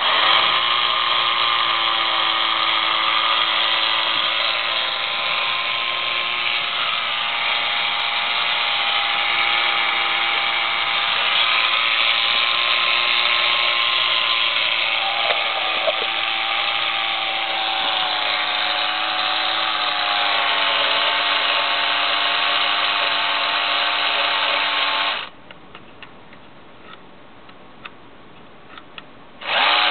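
Small battery-powered electric motor of a toy submarine running dry on the bench, turning the propeller shaft with a steady whine whose pitch sags slightly over time. It stops about 25 seconds in and starts again shortly before the end.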